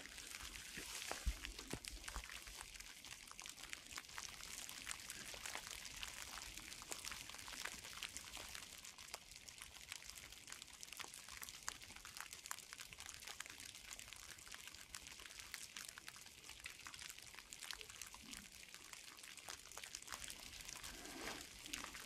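Light rain falling and dripping through the trees: a soft, steady hiss dotted with many small drip ticks, with a low bump about a second in.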